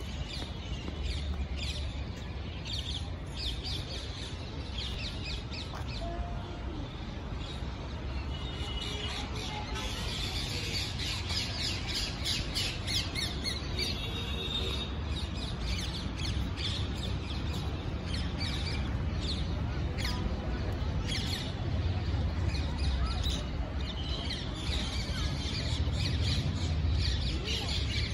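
Many birds chirping and calling at once, a dense chorus of short high calls, busiest midway and again near the end, over a steady low rumble.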